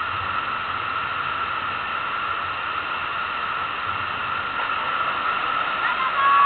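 Steady rushing of the FlowRider's pumped sheet of water pouring up the wave ramp, an even hiss with no break. Near the end a loud, high steady tone comes in over it.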